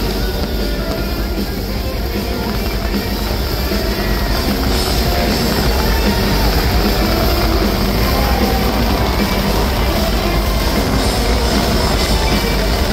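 Loud rock music playing continuously over a steady low rumble.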